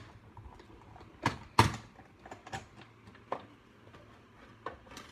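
Die-cut and embossing machine running a plate sandwich with an embossing folder through its rollers: irregular clicks and knocks, two loud clunks about a second and a half in, then lighter scattered clicks.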